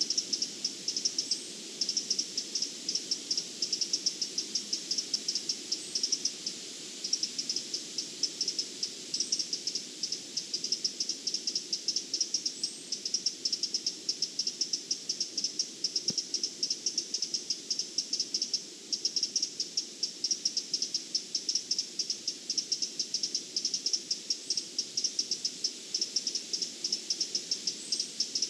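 A cricket-like insect singing: a fast, continuous train of high, buzzy pulses that breaks off briefly twice. A faint short upward chirp recurs every few seconds.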